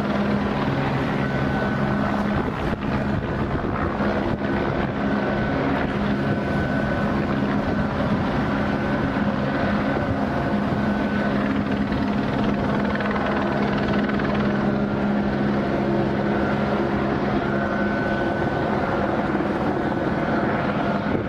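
Steady engine drone: a low hum with a fainter high whine above it, holding an even level without any sudden sounds.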